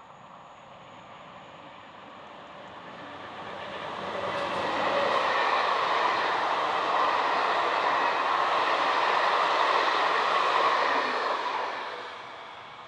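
Intercités passenger train of Corail coaches hauled by a BB 26000 electric locomotive passing at speed. The rolling noise of wheels on rail swells as it approaches, holds steady as the coaches go by, then fades near the end.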